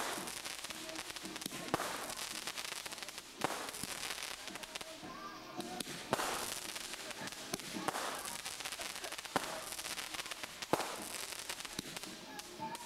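Aerial fireworks bursting, a sharp bang every second or two.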